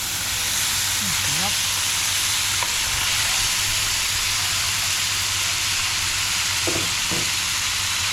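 Food sizzling in a hot frying pan: a steady, loud crackling hiss.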